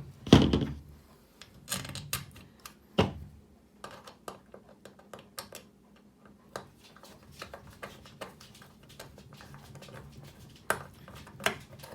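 A flat screwdriver driving slotted screws into the metal legs and rails of a serving cart: scattered small metallic clicks and taps, with a louder knock just after the start and another about three seconds in.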